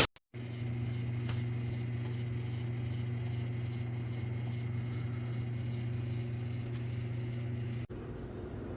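Toshiba inverter countertop microwave oven running with a steady hum. The hum cuts off suddenly near the end, leaving a quieter, even hum.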